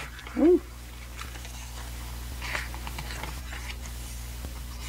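Pages of an album photo book being turned by hand, with soft paper rustles and light taps. About half a second in there is a brief, louder pitched sound that rises and falls.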